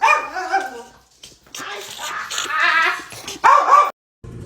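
A dog barking again and again in loud bursts, cutting off suddenly about four seconds in; a low steady hum follows.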